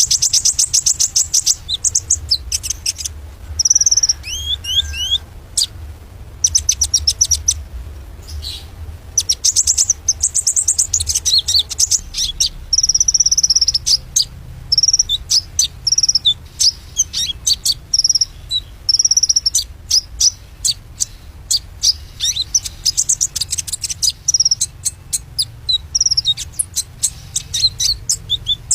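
White-rumped shama (murai batu) singing in full voice: long runs of rapid, high-pitched chirps mixed with short whistled slurs, broken by brief pauses.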